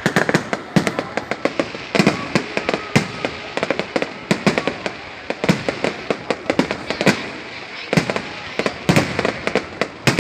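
New Year's Eve fireworks going off continuously: many sharp bangs in irregular, overlapping succession over a steady wash of more distant explosions.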